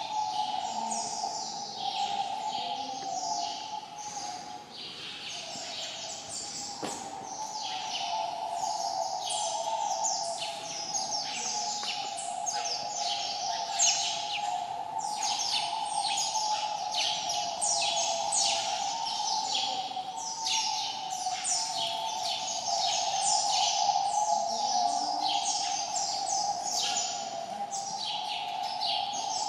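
Small birds chirping busily, with many quick high notes that each slide downward, overlapping two or three a second. A steady whir runs underneath.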